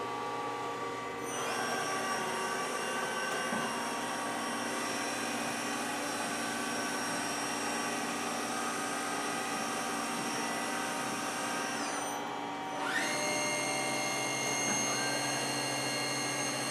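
Star SV20 CNC Swiss-type lathe running under power: a high multi-tone whine rises as a spindle speeds up about a second in and holds steady, over a constant lower machine hum. About two-thirds through the whine runs down, then spins back up a second later and drops slightly in pitch near the end.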